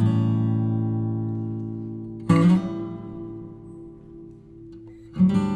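Background music: acoustic guitar chords strummed and left to ring out, a new chord about every two and a half seconds.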